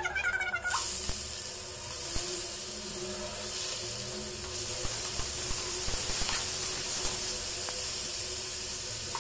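Chopped onions sizzling in hot oil in a kadai, a steady hiss that starts under a second in, with a few light clicks of a metal spatula.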